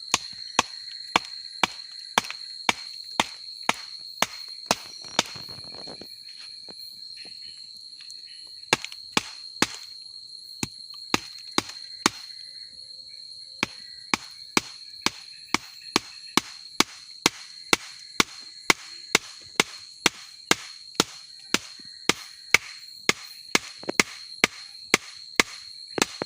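Sharp knocks repeating about twice a second, with a few short uneven gaps, over a steady high-pitched insect drone.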